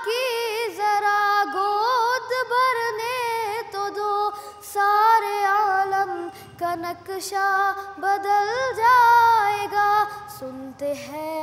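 A boy's unbroken solo voice singing a naat, holding long notes with ornamented turns and bends in pitch.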